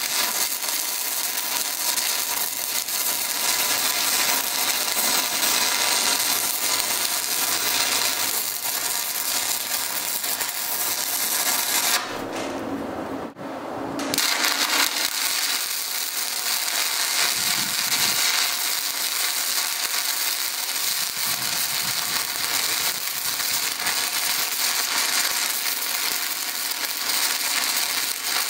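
Stick welding (SMAW) arc crackling and sizzling steadily as the electrode burns. Near the middle the crackle stops for about two seconds, then starts again.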